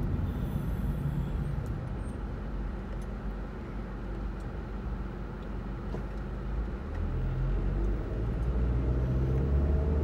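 Car engine and road rumble heard from inside the cabin, easing as the car slows to a stop and rising again as it pulls away about eight seconds in.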